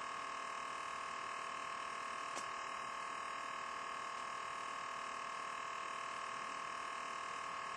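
Steady electrical hum and high whine from the recording gear, unchanging throughout, with a faint tick about two and a half seconds in.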